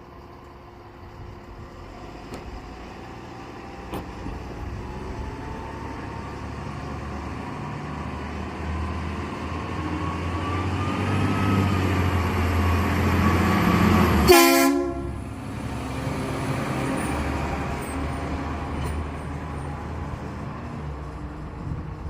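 Fire truck's diesel engine approaching and growing louder, with a faint high whine rising slowly. About two-thirds through, one short, loud train-horn blast sounds, then the engine runs on.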